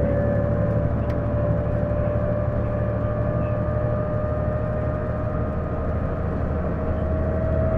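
Isuzu Erga PJ-LV234L1 city bus under way: low engine rumble with a steady whine that rises slowly in pitch. This is the abnormal noise the bus makes whenever it accelerates, sounding like an automatic transmission; the uploader suspects the transmission.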